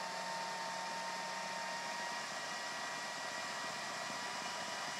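Kenwood food processor motor running steadily at speed with a constant whine, its blade mixing flour, butter and water into shortcrust pastry dough.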